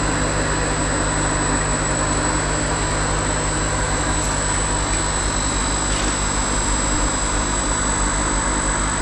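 Steady drone of the electric air-pump motors that supply oxygen to the fish tanks, a constant low hum with an even hiss and a thin high whine over it.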